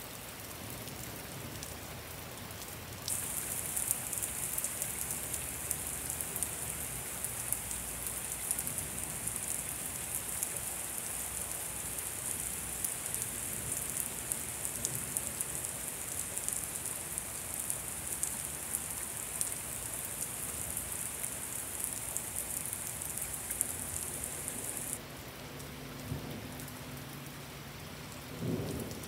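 Very heavy thunderstorm rain pouring down in a steady hiss and dense patter, louder from about three seconds in until a few seconds before the end. A low rumble of thunder starts right at the end.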